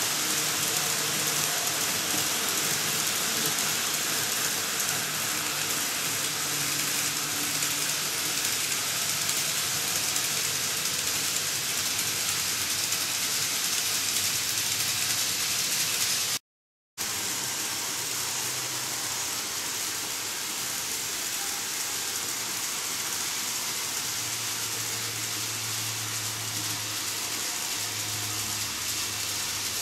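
N-gauge model trains running on the track: a steady rolling hiss of wheels on rail with a low motor hum, first from a KATO KiHa 283 series set and then from a KATO DF200 locomotive hauling container wagons. The sound cuts out briefly about halfway through.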